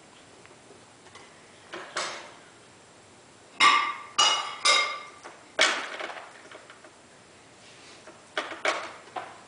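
Plastic toys knocking and clinking as a young capuchin monkey plays with them: a knock about two seconds in, a loud cluster of three ringing clinks around four to five seconds, another at about six, and a few lighter knocks near the end.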